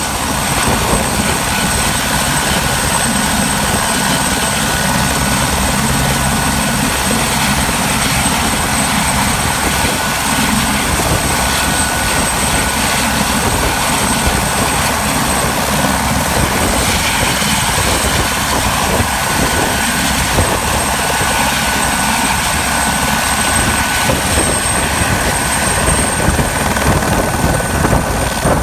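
AS355N twin-engine helicopter running on the ground, its two Safran Arrius 1A turboshaft engines and turning main rotor making a steady whine over a broad rush. A thin high tone holds steady, and a fainter, lower tone stops near the end.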